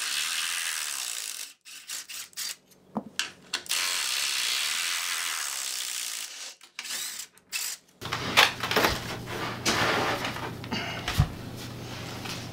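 Cordless drill running in two steady spells, about a second and a half and then about three seconds, with short clicks between, backing the bolts out of a wooden bunk-bed frame. Near the end come scattered knocks and clunks of the loose bed rails being handled.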